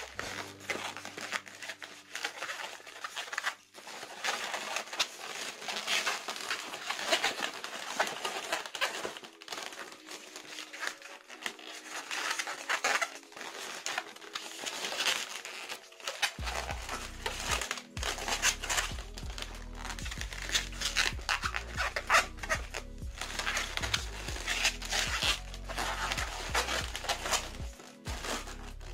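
Background music, with a bass line coming in a little over halfway through, over the rubbing and crinkling of long latex modelling balloons being twisted and woven into a basket.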